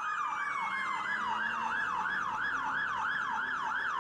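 Electronic yelp siren from a toy fire engine's sound module: a fast, rising-and-falling wail repeating about three or four times a second.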